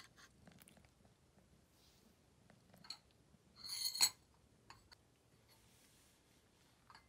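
Metal spoon clicking and scraping against a tin can of wet cat food as the pâté is dished out, with light ticks and one louder, short ringing clatter about four seconds in.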